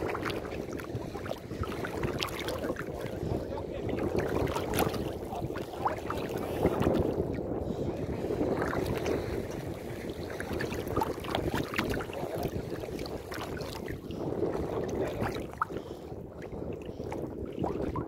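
Shallow seawater sloshing and splashing as someone wades through it, with wind on the microphone.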